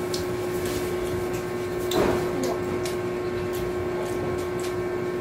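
Steady mechanical room hum on one pitch, with a few small clicks and a short louder sound about two seconds in from two people drinking, one from a plastic soda bottle and one from a glass.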